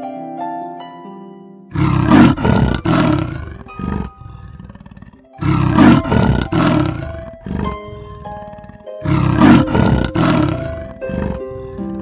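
A large animal roaring three times, each call about two seconds long and a few seconds apart, over soft harp music.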